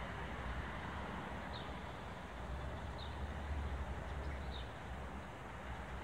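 Wind rumbling and hissing on the microphone outdoors. Faint short high peeps come about every second and a half.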